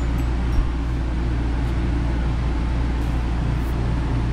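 Steady low hum of an air conditioner running in the small cabin, with a brief low thump about half a second in.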